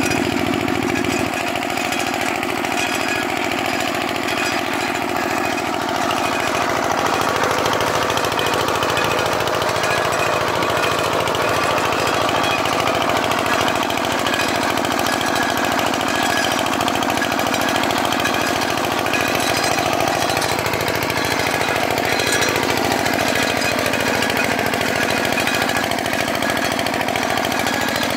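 Small 5 hp single-cylinder diesel engine of a power tiller running steadily under load as it tills soil, with a fast, even chatter.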